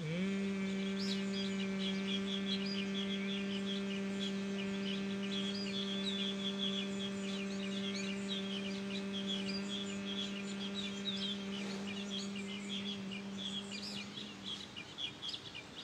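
A man humming one long, steady, bee-like note on a single out-breath, as in Bhramari (humming bee) breathing. The note slides up briefly as it starts and fades out near the end. Birds chirp throughout.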